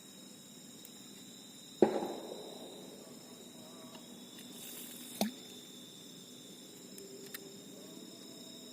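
Steady high insect chirring, with a sharp knock about two seconds in that dies away quickly and a lighter click a little after five seconds.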